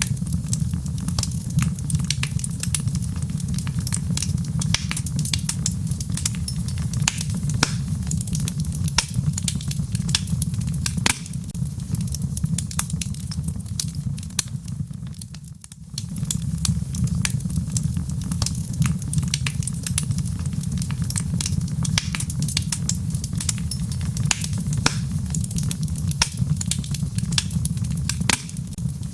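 Wood fire burning in a fireplace: a steady low rumble of flames with constant sharp crackles and pops from the logs. The level dips briefly about halfway through, then carries on as before.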